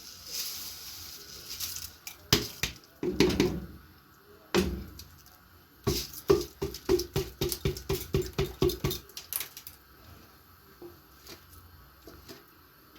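Rice being added to a cooking pot, then a spoon stirring it and knocking against the pot: a few separate knocks, then a quick run of strokes at about four a second that stops about nine seconds in.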